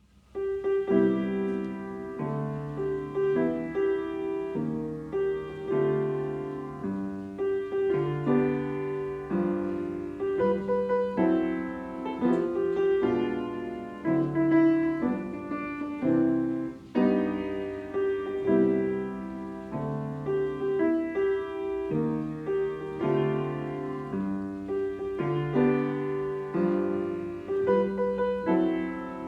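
Piano music: chords played at an even pace, each struck and fading.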